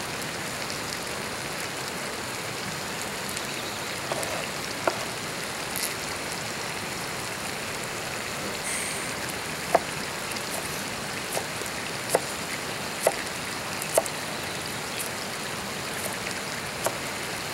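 Kitchen knife chopping onion on a plastic cutting board: scattered sharp knocks, irregularly spaced, over a steady hiss.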